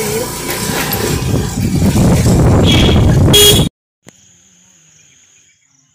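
Motorbike engine running, with wind rushing over the microphone as it rides, growing louder about two seconds in, and a short horn beep near the end. The sound then cuts off suddenly to a faint, steady, high insect buzz.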